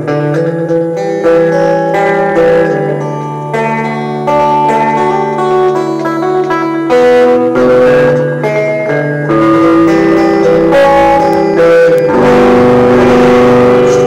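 Guitar played solo, a run of picked single notes and chords ringing over one another, building to fuller strummed chords near the end.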